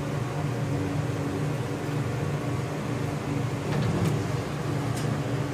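Elevator cab ventilation fan running with a steady hum, with a couple of faint clicks about four and five seconds in.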